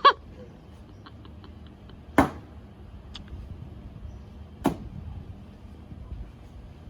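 Cornhole bags landing on the board one after another: two sharp slaps about two and a half seconds apart, each trailing off briefly.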